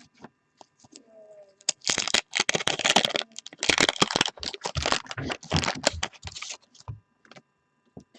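Wax-paper wrapper of a 1989-90 Fleer basketball pack crinkling and tearing as the pack is ripped open: a dense crackle of about five seconds, starting about two seconds in.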